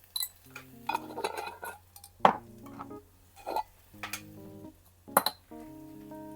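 Kitchen utensils clinking and clanking against pots and dishes over soft background music, with sharp strikes about two seconds in and again just after five seconds.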